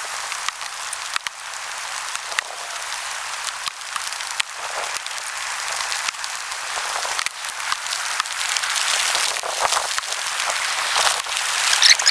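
Heavy rain falling steadily, a dense hiss with many individual drops ticking sharply.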